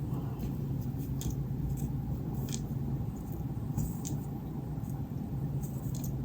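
Steady low hum with a few faint, brief scratchy strokes of a comb combing wig lace down into the glue.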